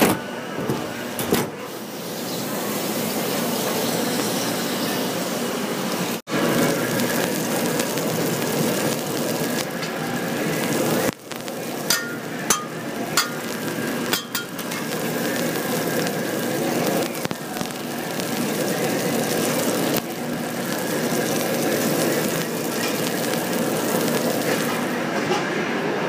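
Kitchen sounds in short takes: water bubbling and running in a machine's stainless drain pan, then a beef patty sizzling steadily on a flat-top griddle, with a few sharp taps partway through.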